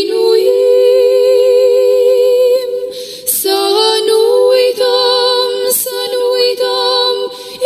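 Unaccompanied voices singing an Orthodox devotional hymn in Romanian, holding long notes with vibrato in two-part harmony; the line breaks and steps to new notes about three seconds in.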